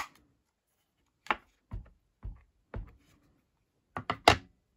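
About six short, irregular taps and dull knocks: a rubber stamp on an acrylic block being inked on an ink pad and pressed down onto card stock.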